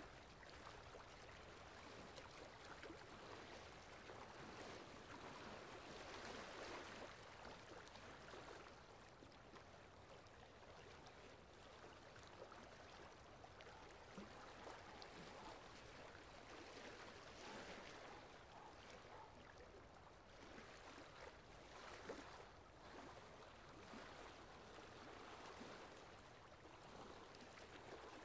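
Faint, steady rain sound: an even soft hiss that swells and eases slightly.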